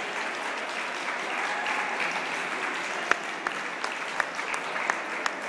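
Ringside crowd applauding steadily, with single sharper claps standing out in the second half.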